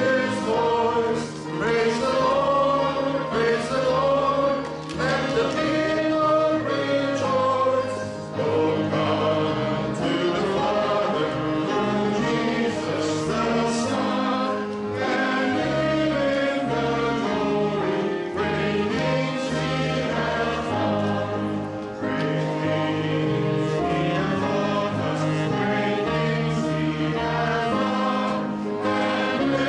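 A choir singing, many voices in long held chords.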